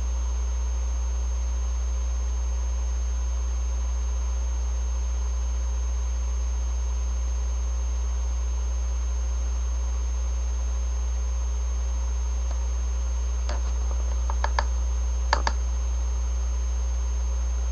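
Steady electrical mains hum with a faint high whine, and a few light clicks near the end from handling the PS3 controller's plastic shell as it is pried apart.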